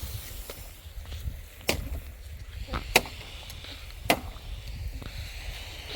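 Four sharp knocks or clicks, the loudest about halfway through, over a low steady rumble.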